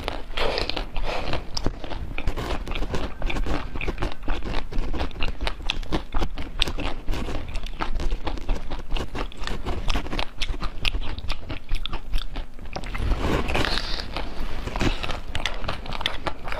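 Close-miked crunchy biting and chewing of a hard-coated jelly treat, a dense run of crackly crunches, with a fuller, louder stretch of crunching about thirteen seconds in.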